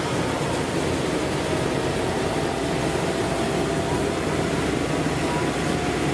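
Farm tractor engine running steadily under load as it hauls a trailer piled with sacks of harvested rice.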